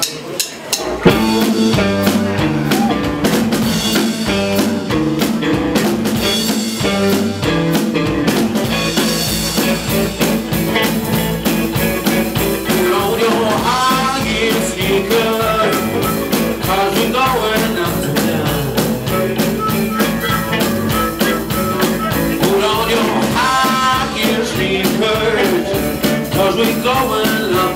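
A live blues band starts playing about a second in: electric guitar, bass and drum kit in a steady groove. A harmonica plays bending notes over it at times.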